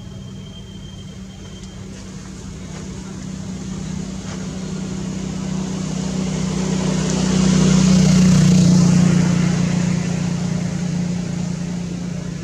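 A motor vehicle passing by: a steady engine hum and road noise grow louder to a peak about two-thirds of the way through, then fade.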